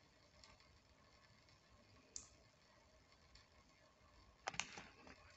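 Near silence: a thin faucet stream trickling faintly into a sink, with a sharp click about two seconds in and a quick pair of louder clicks about four and a half seconds in.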